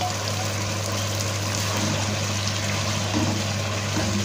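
Mutton gravy simmering and sizzling in a wok on a gas stove after oil has been added, a steady bubbling hiss over a constant low hum. A wooden spoon begins stirring in the pan near the end.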